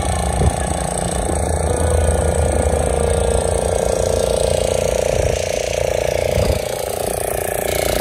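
Motorboat engine running steadily; its deepest part drops away about six and a half seconds in.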